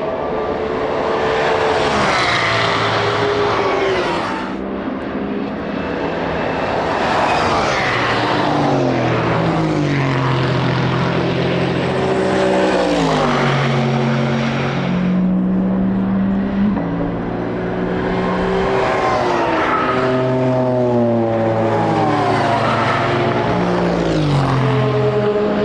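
Racing car engines passing close by one after another, each climbing in pitch through upshifts and then sliding down in pitch as it goes past.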